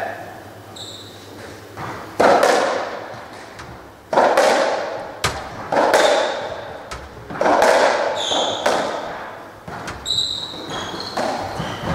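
Racketball rally on a squash court: the ball is struck by the rackets and smacks off the walls, each hit a sharp crack that rings out in the court, about every one and a half to two seconds. Shoes squeak briefly on the wooden floor between the hits.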